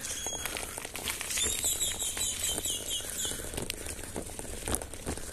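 A bird singing a quick run of about seven falling whistled notes, over the rustle and scattered clicks of a mountain bike being pedalled slowly up a steep concrete street.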